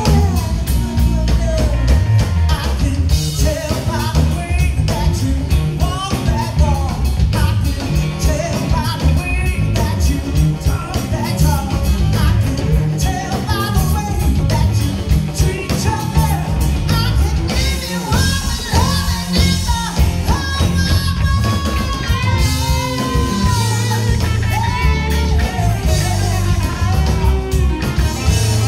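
Live Chicago-style electric blues band: a woman singing lead over electric guitar, bass guitar and drum kit, with several long held notes in the vocal.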